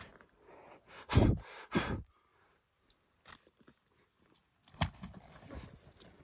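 A horse snorting twice in quick succession, two short, loud, breathy blasts, as it balks at crossing a mud hole. A single sharp knock comes later.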